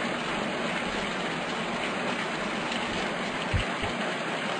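Steady rushing, hiss-like noise with no clear pattern, like rain or running water, with a single low thump about three and a half seconds in.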